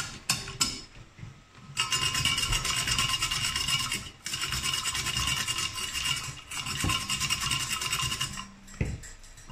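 A carrot being shredded in a hand-cranked Saladmaster food processor: the steel grating cone rasps steadily against the carrot as it is cranked. The rasping starts about two seconds in, pauses briefly near the middle, and stops shortly before the end.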